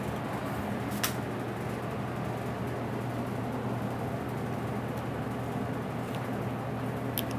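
Steady low hum of kitchen machinery, with one sharp click about a second in and two faint clicks near the end from an oyster knife working the shells.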